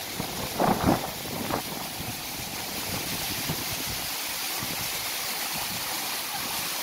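Steady rushing of flowing water, a hiss that grows a little louder about halfway through, with a few gusts of wind on the microphone in the first second or so.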